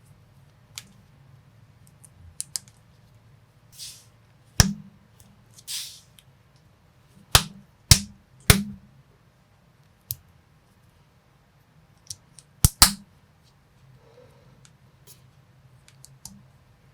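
Plastic building bricks and minifigure parts being clicked and snapped together by hand: sharp clicks at irregular intervals, the loudest a quick pair about thirteen seconds in, with two softer rustling swishes at about four and six seconds in.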